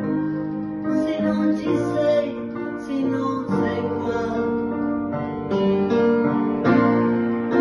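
A song with plucked acoustic guitar accompaniment and a woman's voice singing along.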